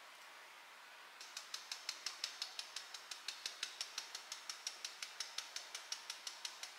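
Quick, even clicking at about five or six clicks a second, starting about a second in.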